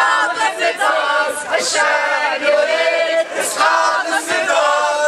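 A crowd of demonstrators chanting a slogan in unison, many voices shouting the same short phrase over and over.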